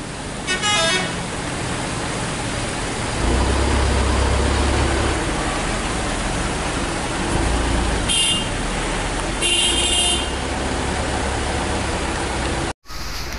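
Road traffic with vehicle engines running and a low rumble, and short high-pitched car horn toots, twice near the eight- and ten-second marks.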